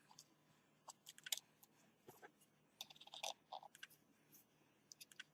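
Faint, scattered clicks and light taps of small smartphone parts and a cable connector being handled and pressed into place by fingers, in small clusters about a second in, around three seconds in and near the end.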